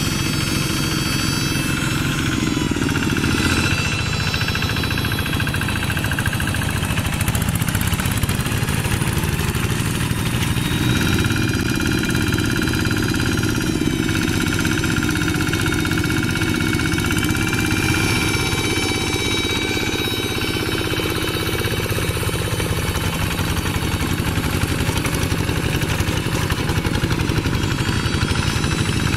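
Single-cylinder diesel engines of two-wheel hand tractors running steadily under load as they pull cage wheels and tillage gear through paddy mud, the engine pitch shifting slightly now and then.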